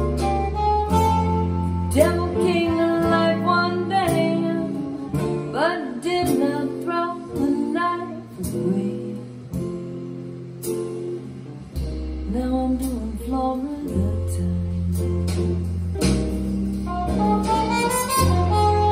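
Recorded popular music played through ATC SCM19 bookshelf speakers. Steady bass notes run under a melodic lead.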